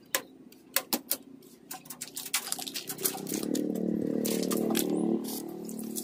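Sharp clicks and rattles of a plastic bath tub being fitted into a wire-mesh bird cage, then a steady low hum for about two seconds.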